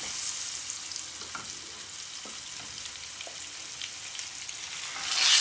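Whole spice-marinated pomfret sizzling in hot shallow vegetable oil, a steady hiss with small crackles. The sizzle swells sharply near the end as a second fish is laid into the oil.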